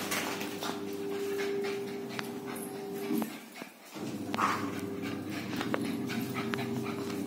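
Puppy panting and whimpering as it scampers about, with short light ticks on a hard floor and a steady low hum underneath.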